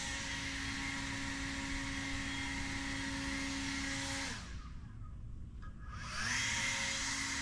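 The electric motors of a Toro Revolution GrandStand battery-powered stand-on mower whir steadily with a hissing whine. About four seconds in, the motors wind down with a falling pitch. They spin back up with a rising whine about two seconds later.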